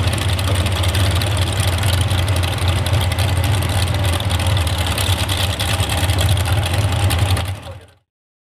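Modified pulling tractor's multiple engines idling steadily with a deep, even hum, fading out near the end.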